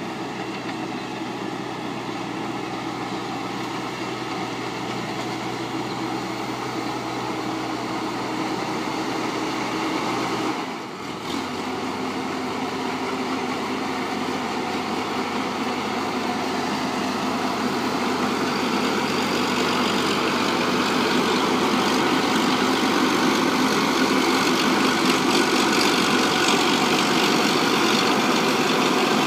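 Rice combine harvester engine running steadily. It drops out briefly about eleven seconds in, comes back with a changed tone, and grows gradually louder.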